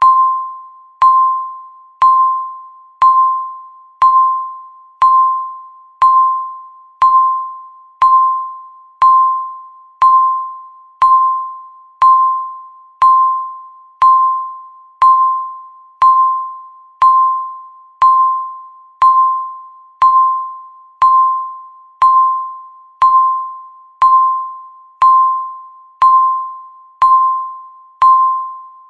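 Countdown timer beep sounding once every second: a single clear pitched tone that starts sharply and fades away before the next one.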